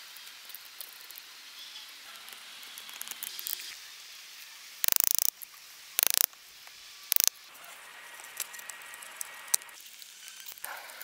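Knife blade slicing through green wood in three sharp strokes about a second apart, midway through. Around them come small clicks and rustling as the split stick and its crosspieces are handled.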